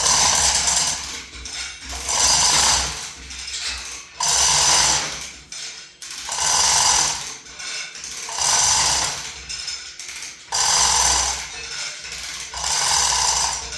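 Ratcheting lever hoist worked in slow strokes, a burst of ratchet clatter about every two seconds, lowering a heavy load.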